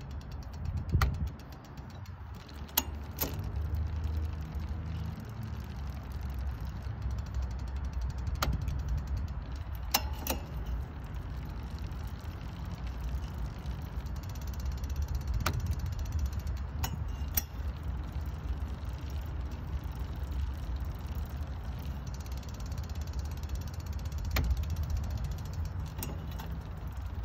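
Mountain-bike drivetrain running on a stand: a chain turns over a spinning Shimano 11–46 eleven-speed cassette under a ZEE rear derailleur, with a steady low whir. A sharp click sounds every few seconds as the derailleur shifts the chain between cogs, and the shifts go through cleanly.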